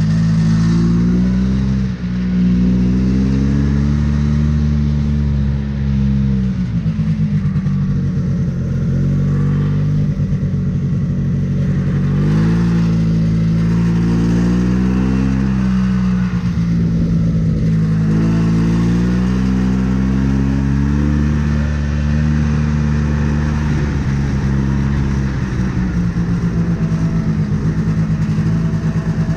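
Yamaha Bravo BR250 snowmobile's single-cylinder two-stroke engine running under way, its pitch rising and falling several times as the throttle is opened and eased off.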